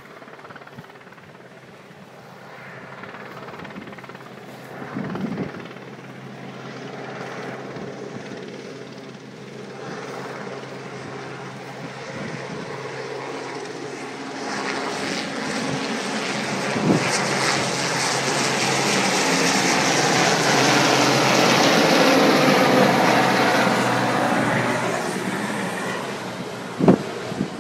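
Westland Sea King helicopter, its rotor and twin turbine engines droning. It grows steadily louder as it flies closer, is loudest about three quarters of the way through, then fades as it passes. A few sharp knocks of the phone being handled, the last near the end.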